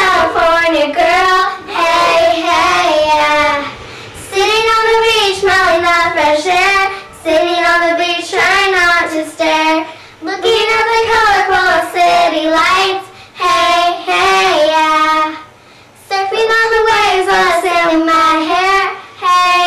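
Two young girls singing an original song together, unaccompanied. They sing in short phrases of a few seconds each, with brief breaks between them.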